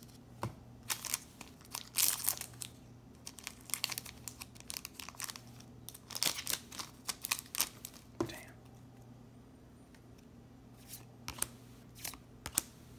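A foil trading-card booster pack being torn open and crinkled in the hands, with a dense run of sharp crackles for several seconds and a few more crinkles near the end.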